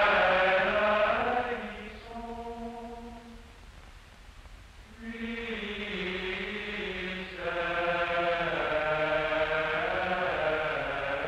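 Male choir singing chant with long held notes. The singing drops quieter a couple of seconds in, then swells again about five seconds in and grows fuller near the middle.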